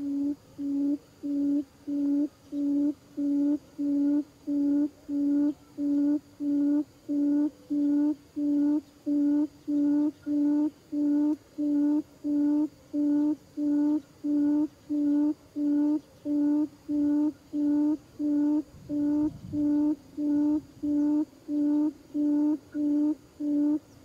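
Buttonquail lure call played for trapping: one low hoot repeated evenly, about one and a half times a second.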